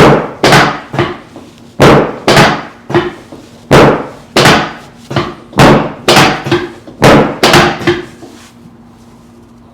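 A run of about a dozen loud, sharp knocks coming in quick pairs and threes, each with a short ring, from chiropractic work on the hips of a patient lying on the treatment table.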